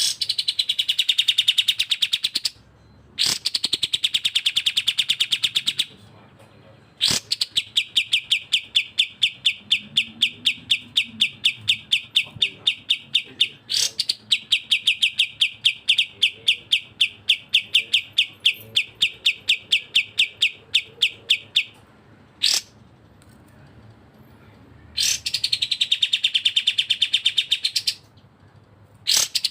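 Bulbuls singing in long trains of rapid, evenly spaced high chirps, in bursts of a few seconds with short breaks between; two kinds of phrase alternate, one curving in pitch and one held level.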